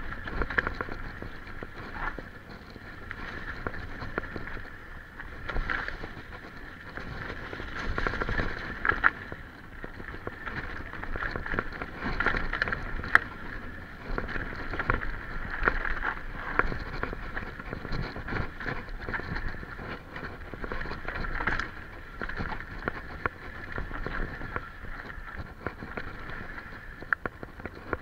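Specialized Enduro mountain bike rattling over a rocky dirt trail on a descent: tyres rolling on dirt and stones, with irregular knocks and clatters from the bike, over a steady rush of wind on the microphone.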